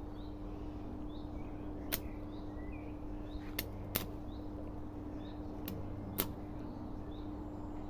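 Five sharp, separate clicks or taps, spaced unevenly, over a steady low hum, with faint short chirps in the background.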